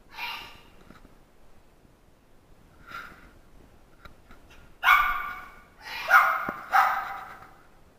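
A dog barking: one bark near the start, a fainter one about three seconds in, then three loud barks in quick succession in the second half.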